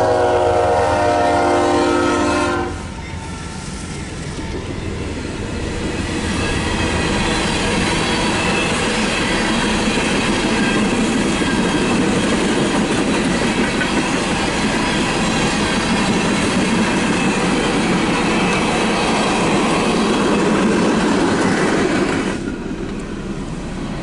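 Union Pacific GE AC45CCTE (GEVO) locomotive's Nathan K5HL five-chime horn sounds one chord for about two and a half seconds. Then the train of tank cars rolls past with steady wheel clatter, which drops off shortly before the end.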